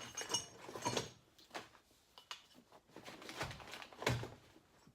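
Hand tools being handled and set down: a series of separate knocks and light metallic clinks, the loudest about four seconds in.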